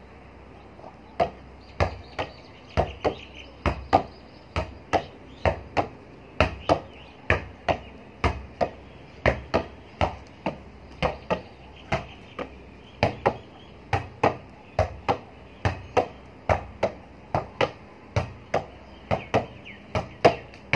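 Volleyball bumped up off joined forearms again and again in an underarm pass, a sharp slap about two to three times a second, starting about a second in.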